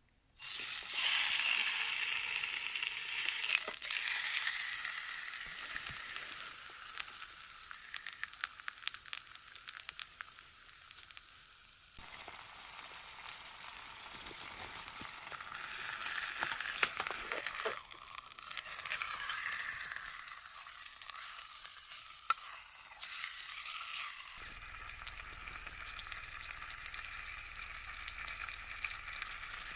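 Meat sizzling and frying in a vintage frying pan, a steady hiss scattered with sharp pops and spits.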